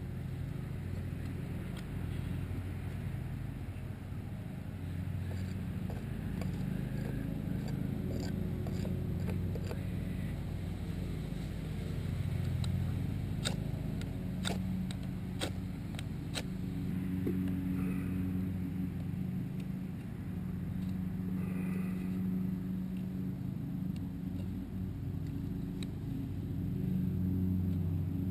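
A steady low motor drone, like an engine running, with a quick run of about six sharp clicks about halfway through.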